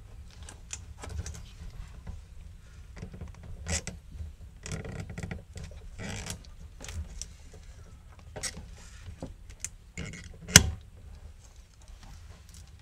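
Plastic clicks, taps and rustles as a BMW E36 fuel pump and level sender assembly is handled and worked into the fuel tank opening. A single sharp click, the loudest sound, comes late on.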